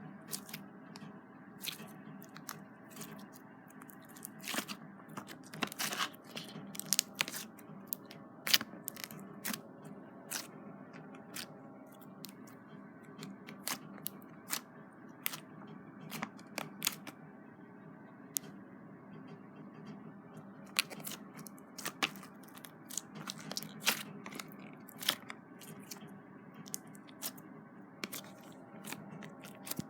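Clear slime and fluffy slime being squished and kneaded together by hand, giving irregular sharp clicks and crackles, several in quick clusters, over a faint steady hum.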